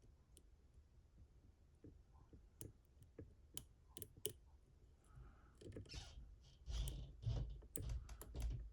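Small metallic clicks and scrapes of lock picks working the pins and rotors inside a Mottura CP6 pin-and-rotor lock. The clicks are sparse at first and grow denser after about five seconds, with low handling bumps near the end.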